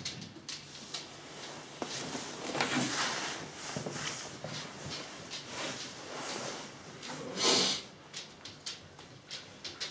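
A search dog's claws clicking and pattering on a wooden floor, with short bursts of sniffing as it works the room for scent, and one louder sniff about seven and a half seconds in.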